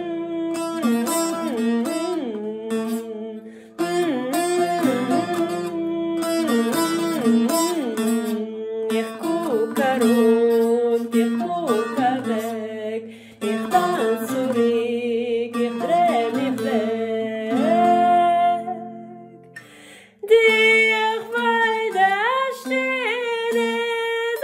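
Bağlama, a Turkish long-necked lute, plucked and strummed while a woman hums the melody without words. The playing pauses briefly about twenty seconds in, then picks up again.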